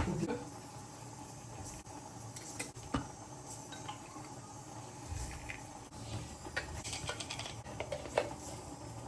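Dishes and cutlery clinking and knocking in scattered light clicks, with a sharper knock at the start and another about three seconds in, as food is served and eaten.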